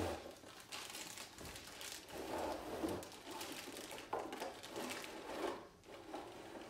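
Plastic wrapping crinkling and rustling, with irregular scrapes and light knocks, as a long plastic-wrapped LED light bar is slid out of its cardboard box.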